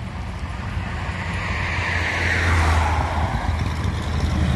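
A road vehicle passing close by, its tyre and engine noise swelling and dropping in pitch about halfway through, over a steady low rumble.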